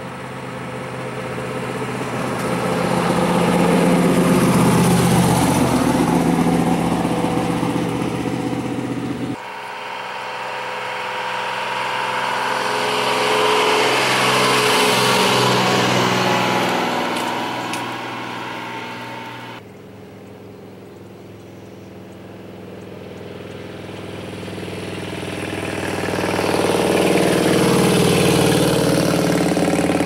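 Three vehicles drive past one after another, each growing louder and then fading. First a 1965 Ford Cobra roadster's V8, then after a sudden cut a 2005 Dodge Ram 3500's turbo-diesel, then after another cut about two-thirds through a 2002 Harley-Davidson Ultra Classic's V-twin, which peaks near the end.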